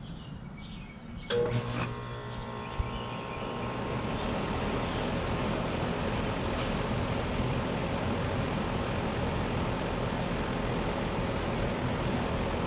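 Trane XB13 central air-conditioner outdoor unit starting up: a sudden clunk a little over a second in as it switches on, then a steady compressor hum while the condenser fan spins up over a couple of seconds to an even, steady rush of air.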